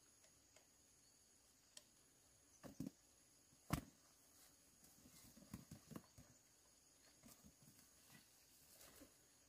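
A few scattered knocks and taps over near silence. The loudest is one sharp knock about four seconds in, followed by a patter of small taps.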